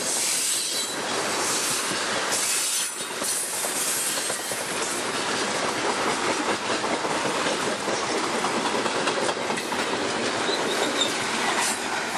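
Loaded coal hopper cars of a long freight train rolling past at speed, their steel wheels rumbling and clacking over the rails. A high-pitched wheel squeal sounds in the first few seconds.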